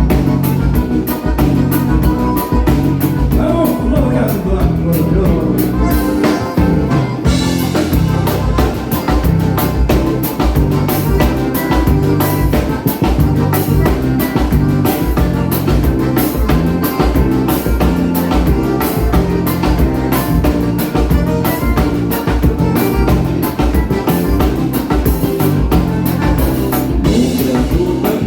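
Live dance band playing a vanera, the gaúcho dance rhythm, with a drum kit keeping a steady beat.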